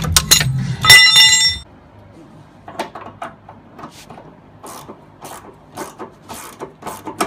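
A metal hand tool clangs and rings briefly about a second in, over rumbling handling noise. After that, a ratchet clicks in short, uneven strokes, a few clicks a second, as it works a fastener under the car.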